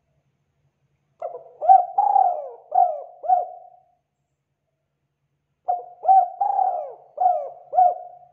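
A dove cooing: two phrases of about five short coos each, each coo sliding down in pitch. The first phrase starts about a second in, and the second follows after a pause of about two seconds.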